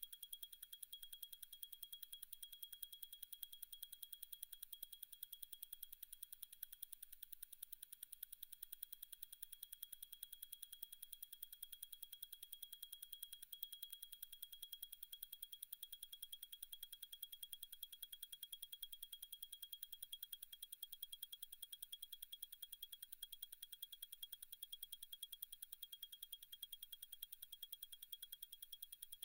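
Faint, rapid, even ticking of a Zenith El Primero 3600 automatic chronograph movement, beating at 36,000 vibrations per hour, ten beats a second.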